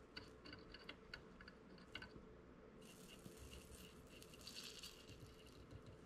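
Very faint crackling sizzle of flux and solder as a soldering iron tins the terminals of a Neutrik NP3X-B 1/4-inch TRS plug, with a few light ticks in the first two seconds.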